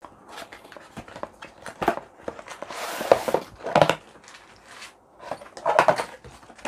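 Product box being opened and its contents handled: a string of clicks, knocks and rustles, with a longer rustling scrape about three seconds in.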